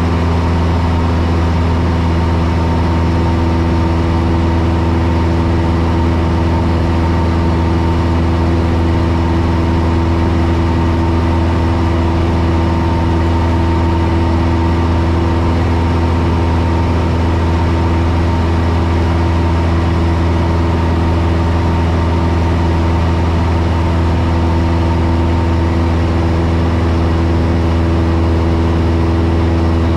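Light airplane's engine and propeller droning steadily in cruise, heard inside the cockpit as a constant low hum with steady overtones.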